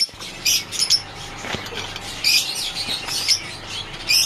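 Domestic birds chirping: many short, high chirps coming in quick, irregular succession.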